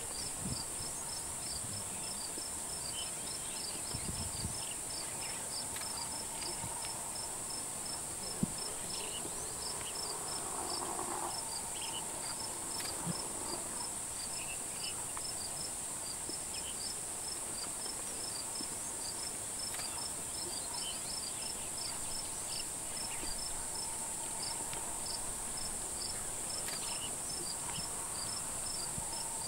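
Insects in the bush: a steady high shrill drone with a cricket chirping evenly, several times a second.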